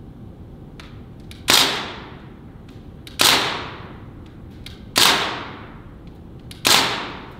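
Four single shots from an M4-style air rifle, spaced about one and a half to two seconds apart. Each is a sharp crack followed by an echo that dies away in about half a second.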